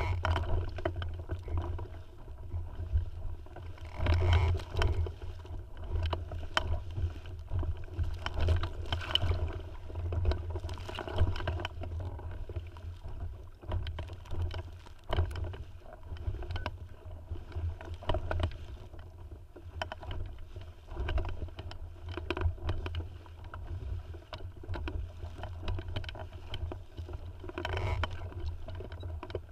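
Inflatable Tiwal 3 sailing dinghy under way: water splashing and slapping against the hull in uneven surges, over a steady low rumble of wind on the microphone.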